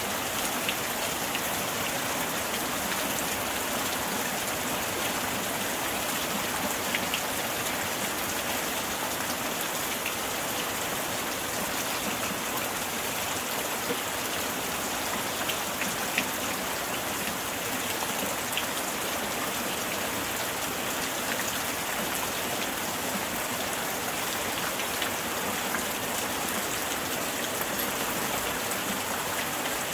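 Steady rain: an even, unbroken hiss with scattered sharp ticks of single drops landing close by.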